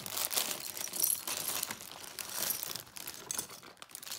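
A thin plastic LEGO parts bag being opened and crinkled, with small plastic LEGO pieces clicking against each other as they are tipped out.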